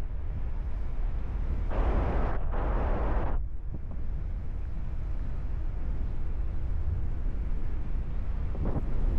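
Wind buffeting the microphone of a paraglider in flight: a steady low rumble, with a louder gust of rushing air from about two to three and a half seconds in.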